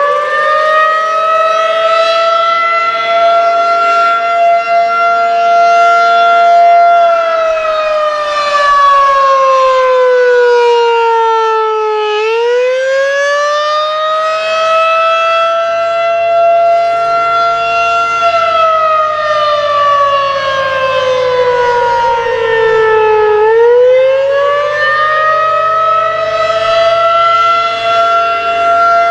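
Federal Signal 2001-SRN outdoor warning siren sounding the attack signal, a loud wail. It finishes winding up, holds its pitch, then slowly falls and rises again in cycles of about eleven seconds, twice.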